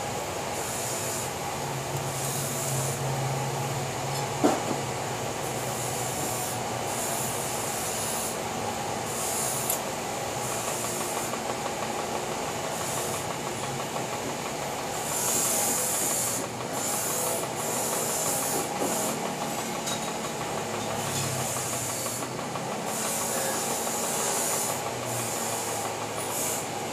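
TIG welding arc hissing in repeated short bursts, struck and broken again and again while joining a motorcycle exhaust pipe, over the steady hum of the welding machine. One sharp click about four and a half seconds in.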